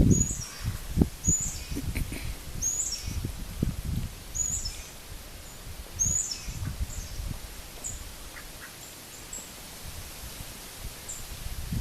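A bird's short, high chirps repeated about every second or so, over low rustling and scattered thumps.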